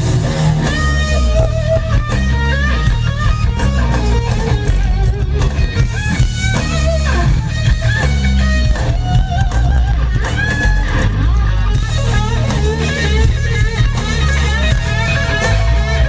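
Live rock band playing loud: electric guitar lines with bent notes over heavy bass and drums.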